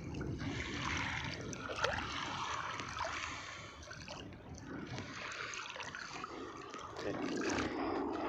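Water sloshing and trickling, with a few light knocks.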